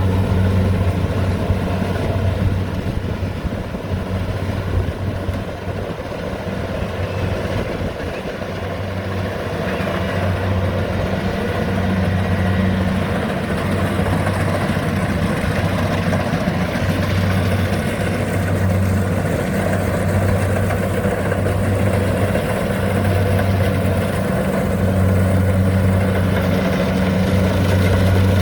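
Rice combine harvester's engine running steadily under load, a constant low hum with a dense mechanical clatter over it.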